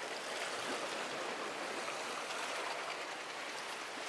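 Steady wash of sea water among concrete breakwater tetrapods, an even rushing noise.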